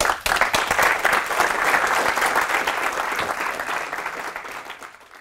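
Audience applauding: many hands clapping, starting at once and slowly fading away.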